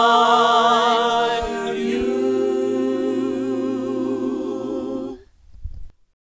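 A cappella singing, women's and a man's voices, holding a final chord with vibrato. The chord changes about two seconds in, and the singing stops abruptly just after five seconds.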